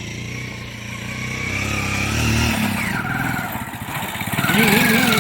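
Royal Enfield Himalayan motorcycle's single-cylinder engine running under load, its pitch rising slightly and then dropping away about two and a half seconds in, before picking up again near the end, as the bike struggles to climb a slippery dirt slope.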